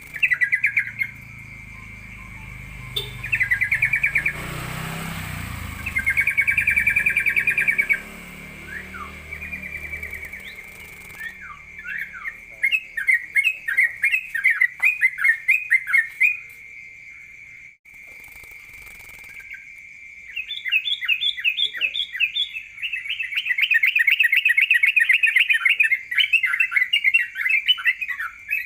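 A caged songbird sings loud bursts of rapid, hammering repeated notes in 'ropel' style, with pauses between phrases. The longest and densest run of trilled notes comes near the end. A steady high tone sounds underneath throughout.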